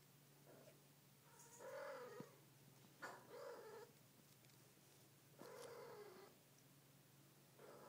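A tabby cat making quiet, short calls: four of them, roughly every two seconds, each under a second long.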